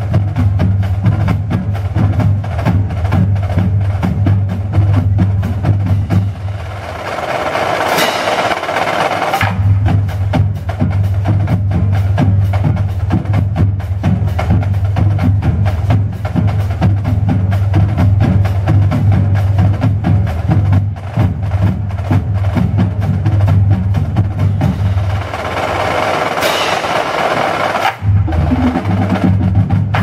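High school marching drumline of snare drums, tenor drums and bass drums playing a cadence: rapid stick strokes and snare rolls over a steady low drum pulse. The low drums drop out twice for a couple of seconds while the upper drums carry on, and about two seconds before the end there is a short break and a new cadence begins.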